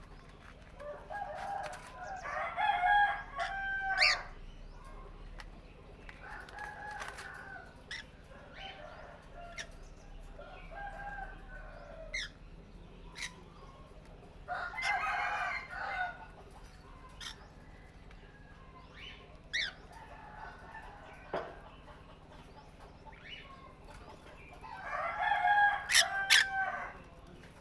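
A rooster crowing three times, each crow a long call lasting a couple of seconds, about ten seconds apart, with short sharp bird chirps in between.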